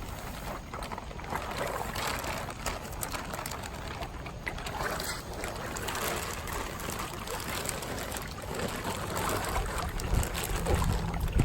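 Water sloshing and splashing in a pond, with wind buffeting the microphone near the end.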